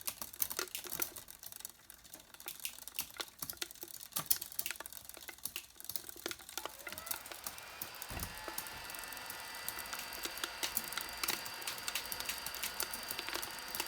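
Sound-designed foley of a robot transforming. A dense run of small mechanical clicks and clacks is followed, from about halfway, by a rising whine that settles into several held metallic tones while the clicking goes on. There is a low thud about eight seconds in.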